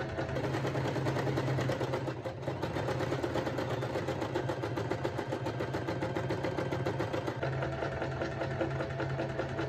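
Janome electric sewing machine running steadily at speed, stitching a straight seam, with a fast even needle rhythm over a motor hum.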